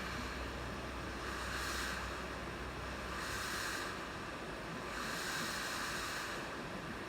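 Hot air rework station blowing a steady hiss of air onto a soldered flat cable to melt the solder, swelling louder three times as the nozzle moves.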